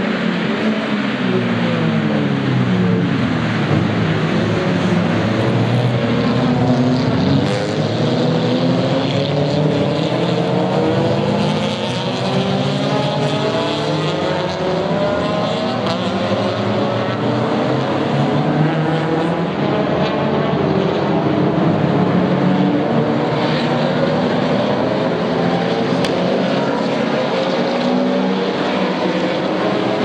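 Several race cars passing at speed, their engines revving hard with overlapping pitches that rise and fall as they accelerate, shift and go by.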